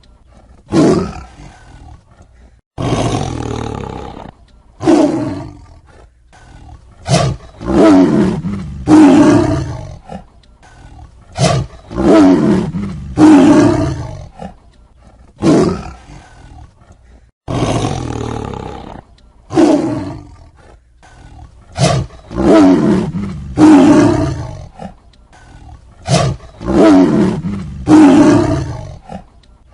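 Tiger roaring and snarling over and over: a dozen or more loud calls, each up to about two seconds long, separated by short pauses.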